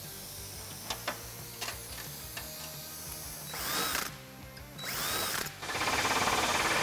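A few light metallic clicks, then a cordless drill whirring briefly twice. About two-thirds of the way in, a pneumatic pistol-grip air hammer starts a fast, loud rattle as it drives a solid aluminum aviation rivet into the seat's aluminum panels.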